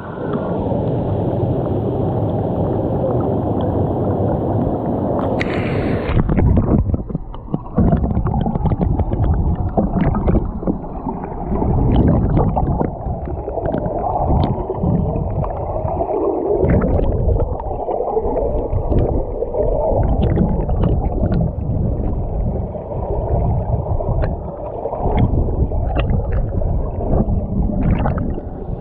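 Waterfall water rushing and gurgling close to the microphone, a loud, dense low rush. From about six seconds in it becomes choppier, with many small splashing ticks.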